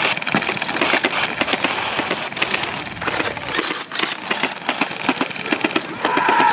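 Airsoft guns firing: rapid, irregular strings of sharp clicks and snaps.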